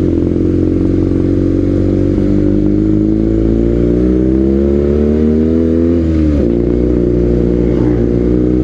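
BMW R nineT's boxer twin running through an aftermarket Villan exhaust, with a raspy, tinny note. The revs climb steadily for about four seconds, then drop sharply and settle.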